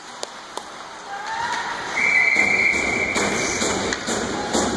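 Referee's whistle blown once about two seconds in, a single steady shrill note lasting about a second that stops play after a scramble at the net. Before it come a few sharp taps, and a louder murmur of rink noise follows the whistle.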